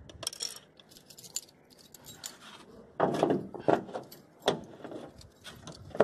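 A bunch of keys jangling and clinking in hand, a jumble of short clicks and rattles that is loudest about halfway through.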